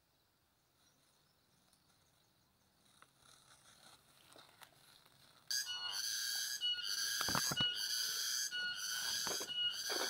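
Faint rustling, then about five and a half seconds in a loud, shrill insect chorus sets in abruptly: several steady high pitches that pulse on and off. A few low thumps come midway through the chorus.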